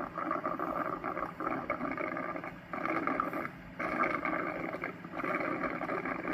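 Cuckoo Power Clone AI all-in-one station pumping water into the robot vacuum's tank: a steady hum under a churning, rushing noise that drops out briefly a couple of times.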